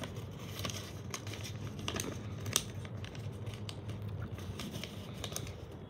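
Square sheet of origami paper being folded and pressed into creases by hand: scattered small crinkles and ticks, with one sharper tick about two and a half seconds in, over a low steady hum.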